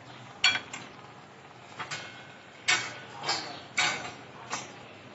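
Sharp clinks and knocks of a stainless-steel slotted spoon and kitchen utensils being handled and set down, about six separate strikes, a couple ringing briefly. A faint steady sizzle of a pakora deep-frying in oil runs beneath.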